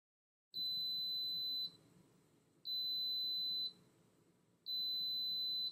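Instant Pot electric pressure cooker beeping three times, each a long, steady high-pitched beep of about a second, about two seconds apart: the signal that the cooking time is over.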